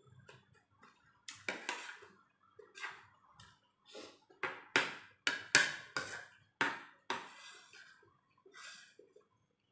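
Metal spoon and fork clinking and scraping against a ceramic plate while eating, a string of sharp irregular strokes that are loudest in the middle.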